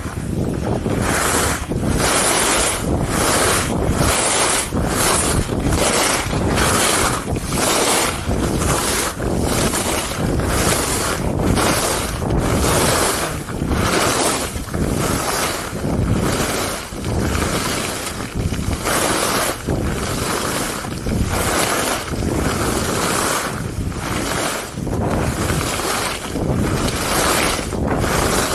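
Skis carving turns on groomed snow: a hissing scrape that swells and fades in a regular rhythm, roughly once or twice a second. Wind rushes over the microphone throughout.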